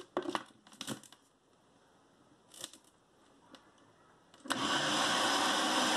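Plastic clicks as a blender lid is pressed onto the jar, then about four and a half seconds in the blender's motor starts and runs steadily, mixing eggs and sugar for cake batter.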